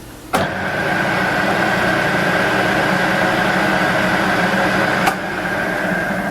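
South Bend 1308 geared-head lathe switched on with a click, its motor and gear head running with a steady whine. About five seconds in it is switched off with another click and begins to wind down.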